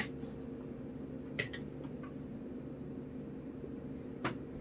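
Quiet room tone with a steady low hum, broken by two brief faint clicks, one about a second and a half in and one near the end.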